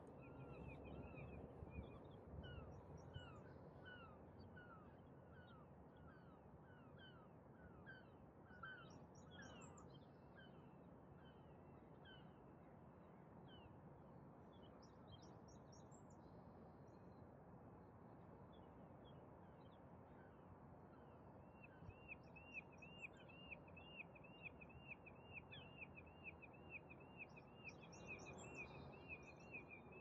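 Birds calling over a quiet, steady low rumble of distant city noise. A series of short repeated chirps runs through the first third, and a fast string of repeated notes, about three a second, starts about two-thirds of the way in and carries on to the end.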